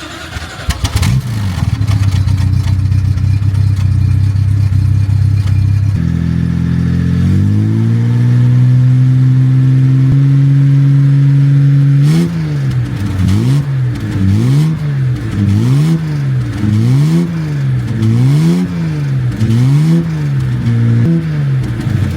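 Car engine running at a steady speed, then stepping up and gliding to a higher, steady speed about six to eight seconds in. For the last ten seconds it is revved up and down repeatedly, about once a second.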